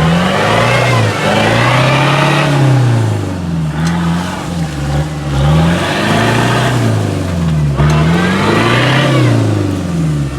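A 4x4's engine revving up and falling back again and again as the driver works the throttle to get the stuck vehicle out.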